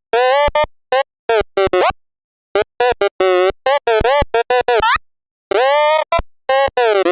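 Glitch-style edited sound effect: one loud, buzzy pitched sound with many overtones, chopped into short stuttering pieces by sudden silences, its pitch bending up and down within each piece.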